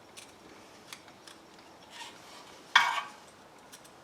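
Faint clicks of metal tools and parts being handled, then one louder metallic clink with a short ring nearly three seconds in.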